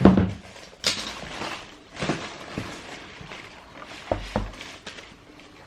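A cardboard shoebox and its paper being handled: clicks and papery rustling, with two soft thumps about four seconds in.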